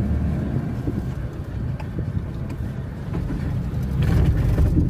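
Toyota Land Cruiser pickup driving slowly, its engine and road noise heard from inside the cab as a steady low rumble that grows louder about four seconds in.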